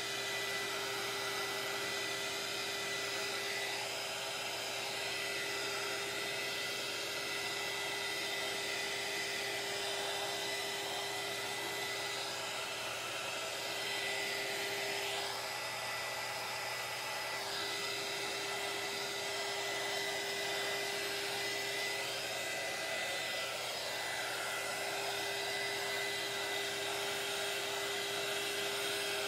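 Electric heat gun running steadily: a continuous rush of blown air with a steady whine under it, played over wet epoxy on tumblers to pop surface bubbles.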